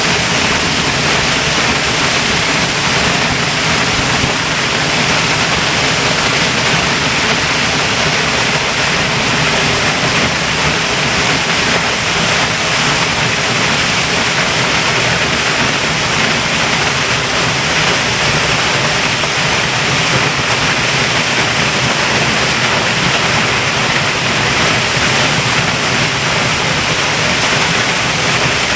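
A waterfall of about 100 feet in full spate after torrential rain, heard close up at its foot as the water crashes into the pool below. It makes a loud, steady rushing roar, strongest in the upper-middle range, with no breaks or single events.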